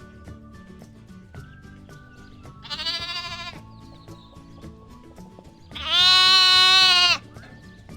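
Lamb bleating twice over light background music: a shorter, wavering bleat about three seconds in, then a loud, longer bleat near the end.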